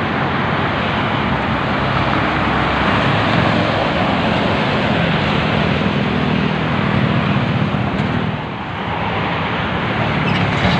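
Steady roar of fast toll-road traffic: tyre noise and engines of passing cars and buses, with a deeper engine drone through the middle that dips briefly near the end.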